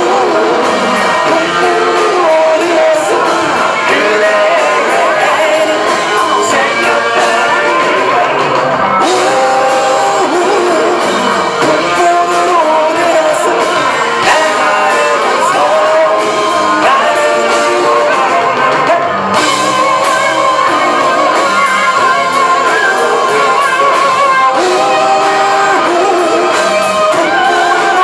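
Live rock band playing, with a male lead singer singing into a microphone over guitar, heard from the audience in a hall.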